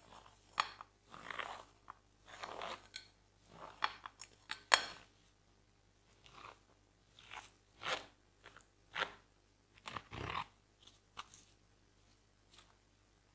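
Wooden spoon scraping soft boiled potato off the underside of a metal mesh sieve into a glass bowl: about a dozen irregular short, crunchy scrapes.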